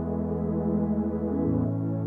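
Soft ambient instrumental music of long held chords, moving to a new chord a little past halfway through.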